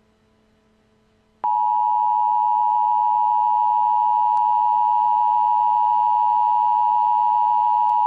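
Emergency Alert System attention tone: one loud, steady, high electronic tone that starts abruptly about a second and a half in, after near silence, and holds unchanged.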